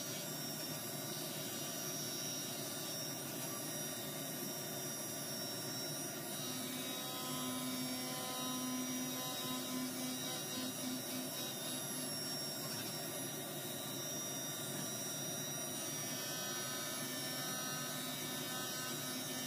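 Haas UMC-500SS five-axis CNC mill roughing a copper slug with a carbide end mill under flood coolant: a steady machine hum, with a pulsing low tone for a few seconds in the middle.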